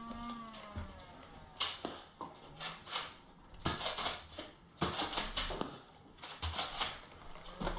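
Nerf blasters firing foam darts, which smack against surfaces: a series of sharp clicks and impacts that come in irregular clusters.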